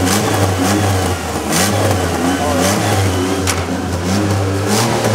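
Plymouth Acclaim's engine running and being revved over and over, its pitch rising and falling about once a second over a steady low hum.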